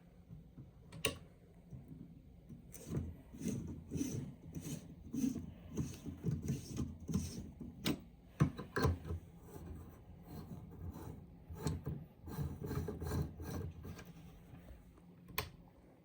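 Irregular scraping and rubbing of objects being handled, with scattered clicks: a sharp click about a second in and another near the end.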